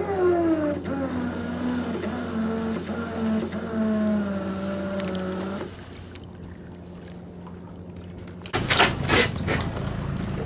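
SEA PRO electric anchor winch motor whining as it hauls the boat on the anchor line, its pitch sliding steadily lower for about five seconds as the load builds, then stopping abruptly. Near the end come loud rushing gusts.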